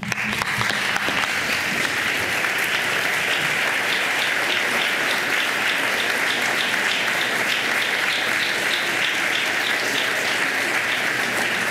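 Applause from a chamber of legislators standing to clap. The dense clapping breaks out suddenly and holds steady.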